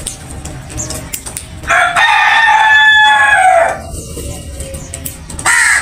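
A rooster crowing once, a long call of about two seconds that drops in pitch at its end, followed by a short loud call near the end.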